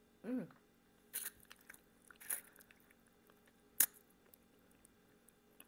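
Close-up eating sounds from a person eating salmon head: a short hummed "mmm" just after the start, then two sucking, slurping noises. About four seconds in comes one sharp click, the loudest sound.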